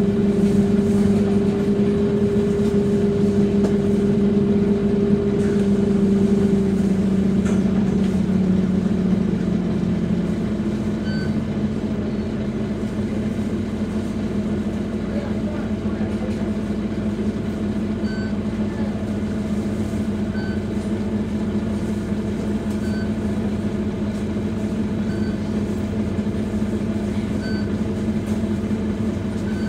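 Scania DC9-16-230 five-cylinder diesel engine and ZF 6HP504C automatic gearbox of a Scania K230UB bus, heard from on board, running in drive with a steady hum that eases and gets a little quieter about ten seconds in. Faint short beeps repeat about every two and a half seconds in the second half.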